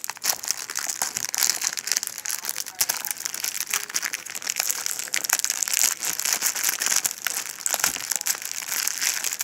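Plastic shrink wrap being peeled and torn off a Blu-ray case, crinkling and crackling continuously with many small sharp snaps.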